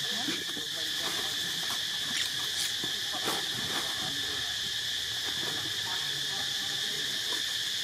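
Steady high-pitched drone of an insect chorus, with a fainter second band lower down and scattered faint ticks and rustles.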